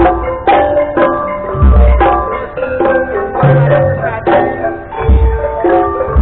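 Javanese gamelan-style ensemble music: struck metal keys ringing on held pitches, with deep drum strokes about every one and a half seconds.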